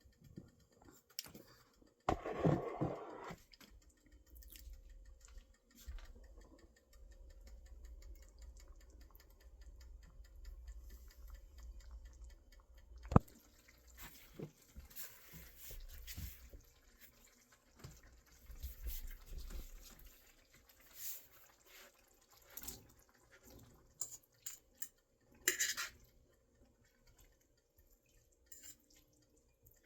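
Small clinks, knocks and handling noises of cooking at the stove, off and on. There is a louder rustling burst a couple of seconds in and a sharp click about halfway.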